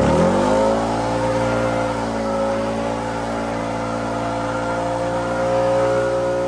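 An engine running steadily, its pitch dropping sharply right at the start and then holding even.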